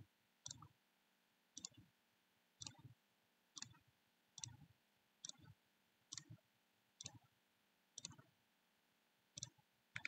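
Faint computer mouse clicks, about ten of them roughly a second apart, placing the corner points of an outline one at a time.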